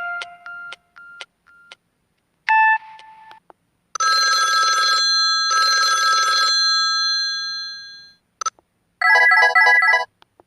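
Samsung SGH-M620 mobile phone ringtones played one after another. A short tone sounds first, then a ringing tone sounds twice for about a second each and fades away, followed by a click and a short chime of several notes near the end.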